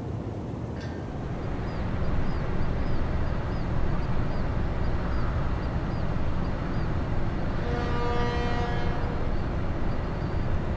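Steady rumbling noise of a ship passing through a canal lock, with electric towing locomotives on the lock wall and water churning beside the hull. A short horn-like tone sounds about eight seconds in, and faint high chirps repeat about twice a second during the first half.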